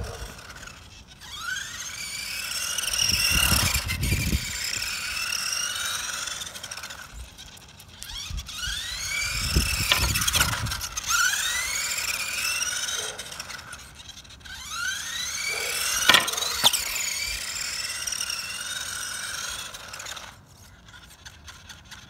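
Electric motor and gears of a 1/18-scale RC monster truck whining, rising in pitch each time it accelerates, several times over. Two sharp knocks come about two thirds of the way through.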